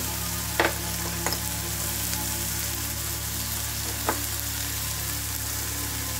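Sliced mushrooms, onion and curry leaves sizzling steadily in oil in a non-stick pan as they sauté. A utensil taps sharply against the pan three times.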